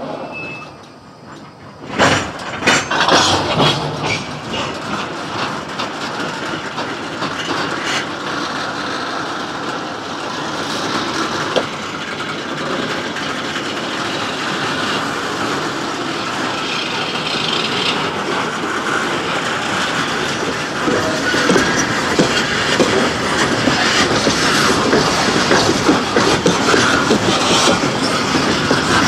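Loaded coal hopper cars rolling slowly past, steel wheels clicking over the rail joints. The noise starts abruptly about two seconds in and grows gradually louder.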